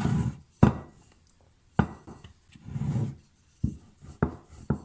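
Rolling pin working thin dough on a round wooden rolling board: a soft rumbling roll broken by several sharp wood-on-wood knocks. At the start the board is swivelled round on the counter with a short scrape.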